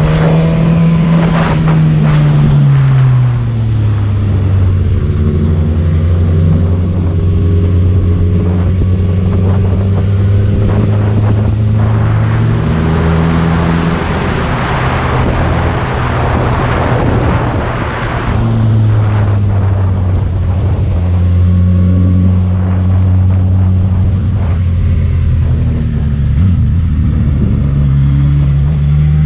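Motorcycle engine heard from on board while riding, with wind rushing past. The revs drop a few seconds in, hold steady, and begin to rise again at the very end; the wind noise swells in the middle.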